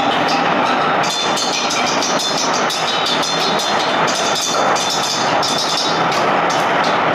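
A tall sound sculpture of hanging rods played with wooden sticks by several performers at once: a dense, continuous clattering of overlapping strikes, with a thin high ringing tone from about a second in to about four seconds in.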